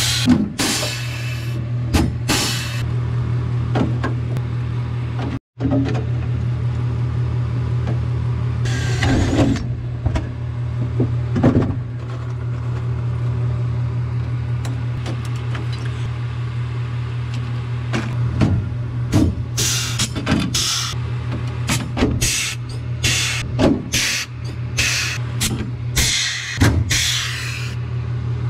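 Pneumatic air rivet gun setting pop rivets into aluminium framing: repeated sharp pops and short bursts of air hiss at irregular intervals, over a steady low hum.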